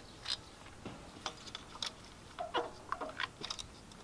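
Scattered light clicks and metallic clinks of hand tools, sockets and a ratchet, being handled, with a short ringing clink a little past halfway.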